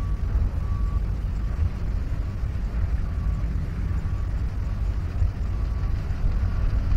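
Steady low rumble, with faint short high beeps recurring about once a second.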